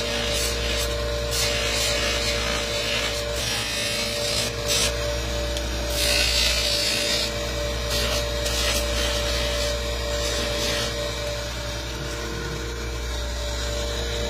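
Bench polishing motor running with a steady hum as animal-horn spoons are pressed against its spinning buffing wheel, giving irregular hissing rasps of friction that ease off near the end.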